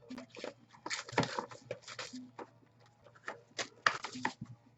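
Irregular soft clicks, taps and rustles of things being handled, a quick run of them through most of the stretch.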